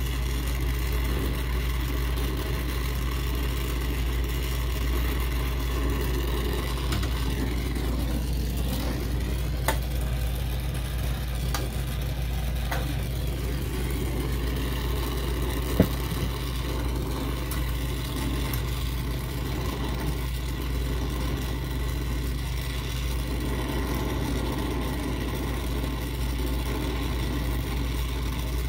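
Brazing torch flame burning steadily on the copper lines at a walk-in freezer evaporator's expansion valve, a constant low-heavy rushing noise. Two brief light clicks come about ten and sixteen seconds in.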